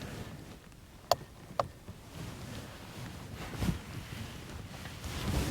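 Camping gear being handled and packed away: two sharp clicks about half a second apart, then a couple of soft thumps.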